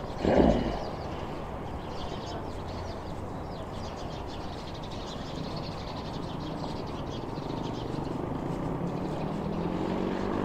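Steady hum of city traffic, with a brief louder sound about half a second in. Near the end a vehicle engine begins to rise in pitch.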